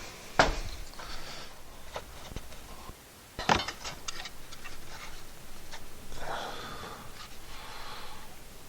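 Workshop handling sounds from the wooden saw holder and its screws: scattered clicks and small knocks, one sharper knock about three and a half seconds in, and two stretches of scraping.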